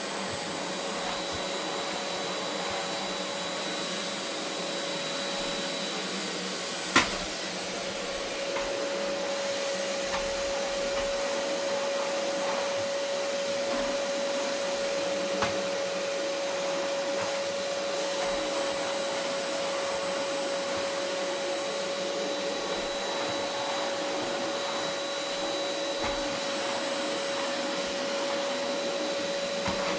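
Vacuum cleaner running steadily over carpet, its motor giving a constant whine. A single sharp click or knock sounds about seven seconds in.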